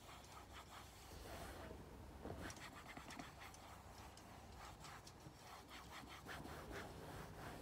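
Faint, irregular scratchy rubbing of a soft cloth being wiped over a leather car headrest, wiping off sprayed WD-40 and sticky residue.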